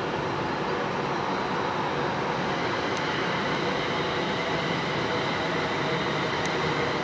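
London Midland Class 350 electric multiple unit moving off along a far platform: a steady rumble of the train running.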